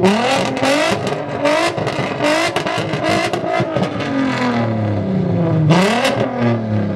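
VW Golf IV R32's VR6 engine being revved while stationary: revs climb and hold high with a rapid crackle, sink slowly, then a quick blip near the end before they fall again.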